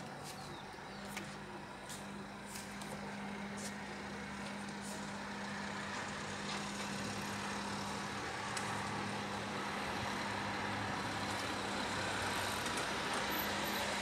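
Outdoor background noise: a steady low mechanical hum under a rushing noise that slowly grows louder, with a few faint ticks in the first few seconds.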